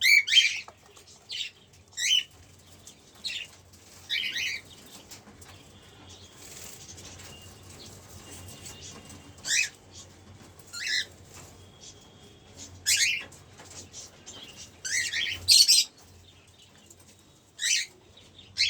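Cockatiels giving short, sharp chirping calls, about a dozen scattered irregularly, several in quick succession near the end.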